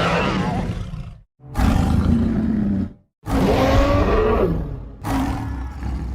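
A series of short roar-like vocal sound effects, about four separate takes of a second and a half or so each, with brief silent gaps between them and a pitch that slides within each.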